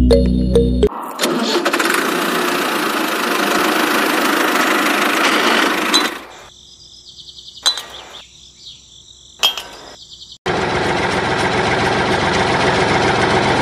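Small electric motor of a toy tractor running with a dense, even buzz, in two stretches separated by a quieter gap of a few seconds that holds a few faint clicks.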